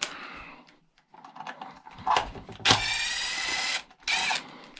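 A cordless power driver spinning screws out of a chainsaw's housing: one steady whine of about a second near the middle and a shorter burst after it, with clicks and knocks of the parts being handled.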